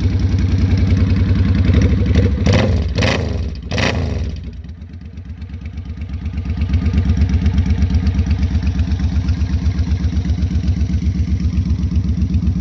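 The 805cc V-twin of a 2005 Suzuki Boulevard C50 running steadily near idle through short, unbaffled Vance & Hines staggered pipes, which are loud. A few short sharp sounds come between two and four seconds in, and the engine sound drops for a couple of seconds around five seconds in before it comes back.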